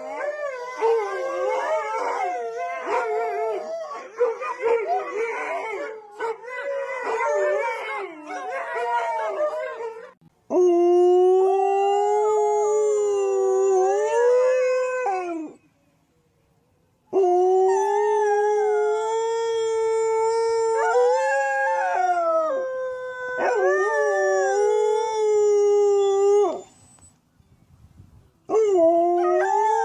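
Dogs howling. For about the first ten seconds several howls overlap and waver in pitch, then come single long, drawn-out howls of several seconds each, with brief silent pauses between them.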